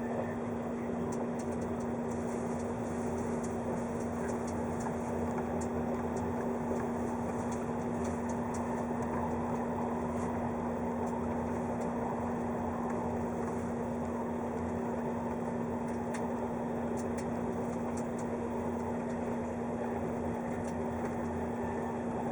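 A 583 series electric train running steadily, heard from inside the passenger cabin: even running noise with a steady low hum and faint scattered ticks.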